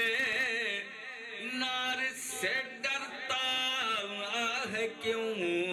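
A solo man's voice singing an Urdu naat (devotional poem in praise of the Prophet) into a microphone, drawing out long wavering notes with vibrato.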